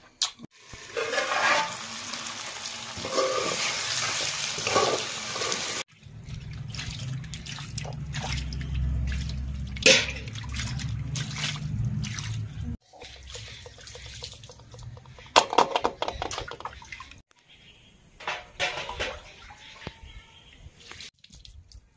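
Water running and splashing, with wet hands handling raw chicken pieces; the sound changes abruptly several times as short clips follow one another.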